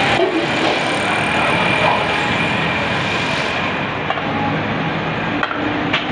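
Huge steel cauldron of meat broth at a hard rolling boil over a fire, a steady bubbling rush, stirred with a long iron rod. Its hiss thins out about three and a half seconds in.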